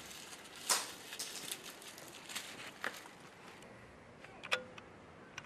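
Dry rustling and scattered crackling clicks of papery garlic heads being pulled from a hanging dried bunch, and of dried chilli peppers being handled, with a sharp snap about a second in.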